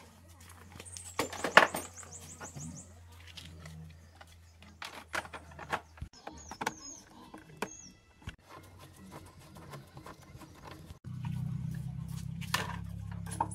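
Workshop tool sounds on metal parts: scattered clicks and knocks, with a quick run of high ticks about a second and a half in. Near the end a small motor starts suddenly and keeps running with a low hum.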